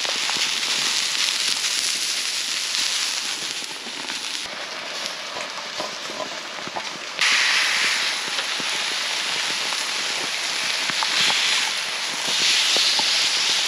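Backstrap sizzling on a hot barbecue plate over a campfire: a steady hiss with scattered crackles and pops. It gets suddenly louder about seven seconds in.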